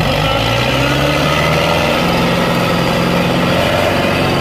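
John Deere 5310 and Sonalika 750 DI tractor diesel engines running hard under heavy load as the two tractors pull against each other in a tug-of-war. The engine note holds steady at high revs.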